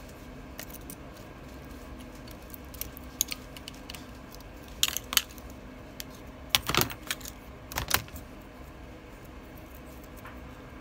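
Small metallic clicks and clinks of tweezers and tiny parts against a phone's metal housing as it is taken apart, coming in a few short clusters around the middle, over a faint steady hum.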